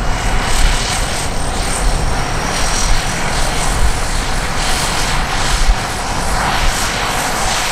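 Cessna 208B Grand Caravan's PT6A turboprop engine running on the ground: a loud, steady rushing noise with irregular low rumbles.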